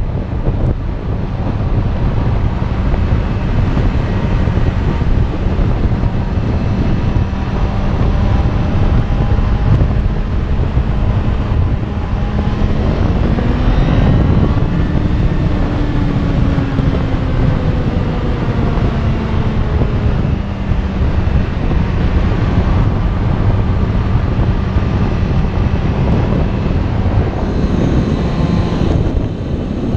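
Motorcycle engine running under way, heavily buffeted by wind on the microphone. About thirteen seconds in, the engine note rises as the bike accelerates, then slowly falls back over several seconds.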